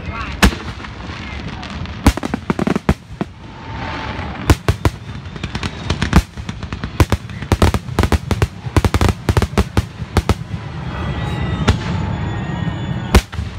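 Fireworks finale: a rapid barrage of aerial shells bursting, dozens of sharp bangs in quick succession, thickest in the middle, over a continuous low rumble.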